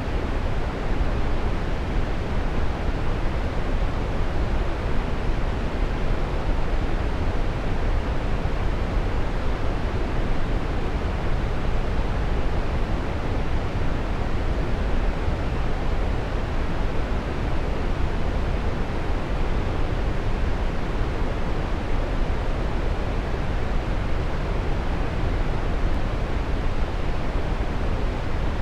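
Waterfall: a steady rush of falling water, even and unbroken, deepest in the low end.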